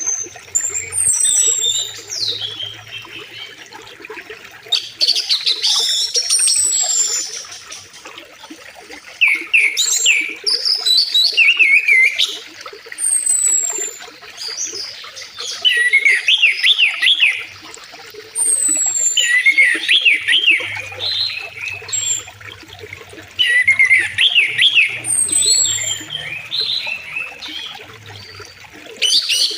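Songbirds chirping and whistling in short repeated phrases every few seconds, over the steady rush of a flowing river.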